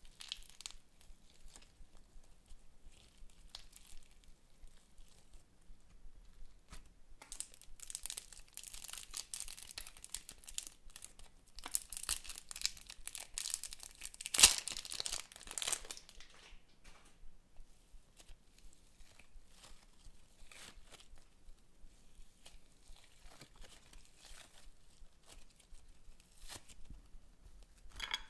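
Thin plastic packet of pink micro foam beads crinkling and being torn open, with the loudest sharp rip a little past the middle. Before and after, quieter crackles and clicks from hands working foam-bead slime.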